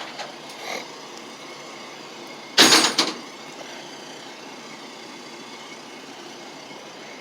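Heavy equipment running in the background during the unloading of an old dump truck, heard as a steady even rumble. About two and a half seconds in comes one short, loud burst, like a hiss or clank, lasting about half a second.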